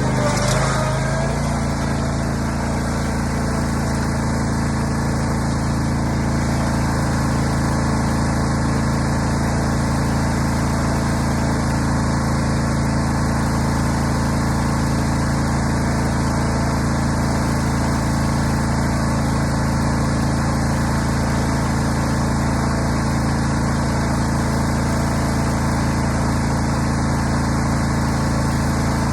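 Riding lawn mower engine running steadily, with a brief shift in pitch about a second in.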